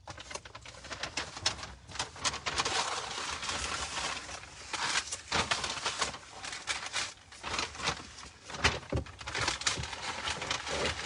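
Paper napkin or wrapper being crumpled and rustled in a hand close to the phone's microphone, a continuous run of crinkling crackles.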